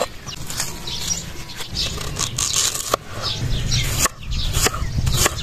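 Kitchen knife slicing a red onion on a wooden chopping board, with a couple of sharp knocks of the blade on the wood about three and four seconds in. Birds chirp throughout.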